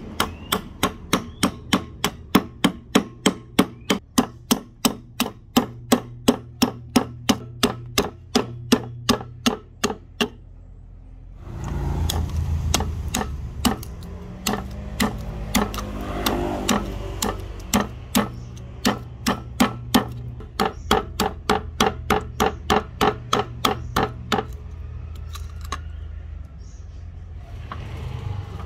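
Rapid, even hammer blows in a workshop, about three a second. They stop briefly about ten seconds in, then resume over a steadier background noise and tail off near the end.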